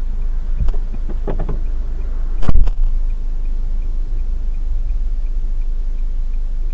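Low steady rumble of a stopped car heard from inside its cabin, with a few short knocks in the first couple of seconds and one loud thump about two and a half seconds in. Faint regular ticking runs underneath.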